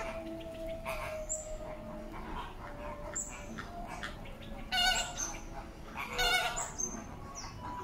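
Flock of flamingos calling, goose-like honks, with two loud honks about five and six seconds in over a steadier murmur of calls.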